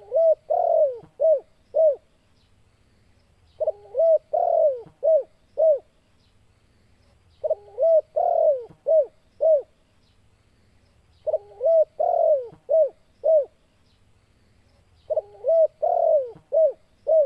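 Spotted dove (tekukur) cooing its song, a phrase of short arched coos with one longer falling coo, repeated about every four seconds, five times. This is the loud song that the uploader offers as a call that provokes rival spotted doves to fight.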